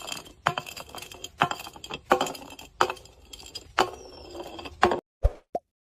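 Repeated sharp clinks with a high ringing, roughly two a second. The sound cuts off abruptly about five seconds in, leaving two short clicks.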